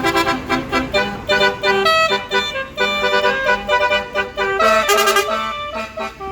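Bus basuri telolet horn, a set of multi-tone air trumpets, playing a rapid tune of short notes over the low rumble of the bus.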